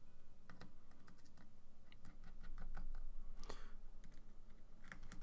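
Irregular light clicks and taps of acrylic keyboard-case plates being handled and fitted together, with a brief scrape about three and a half seconds in.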